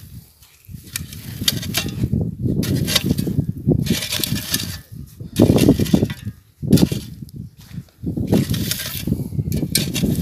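Wooden-handled spade cutting into and scraping loose, dry garden soil in several strokes, with gritty crunches, over a low rumble; the loudest strokes fall about halfway through.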